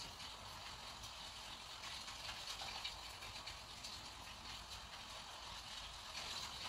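Watercolour brush dragging across rough 300 g/m² paper: a faint, uneven scratchy hiss as the strokes are laid down.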